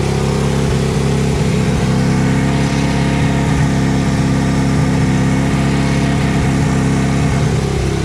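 Case 1816C skid steer's engine running steadily, with a heavier, fuller tone from just after the start until near the end.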